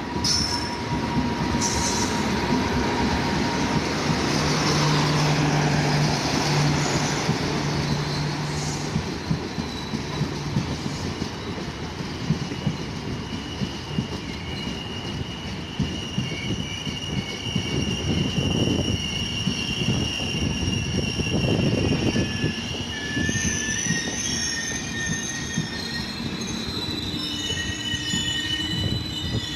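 Passenger train's coaches rolling past close by, a steady loud rumble with the wheels clacking over the rail joints. From about halfway on, the wheels give high-pitched squeals.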